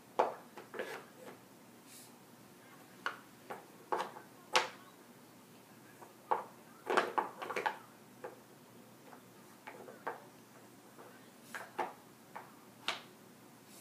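Small wooden blocks clacking and knocking against each other and a wooden block cart as they are handled and stacked: irregular single knocks, with a quick run of several about seven seconds in.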